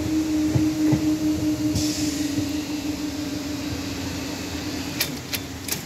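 Level-crossing barrier mechanism humming steadily as the barrier arms rise, with a few low knocks from the departing train about a second in. Three sharp clicks near the end as the barriers come up.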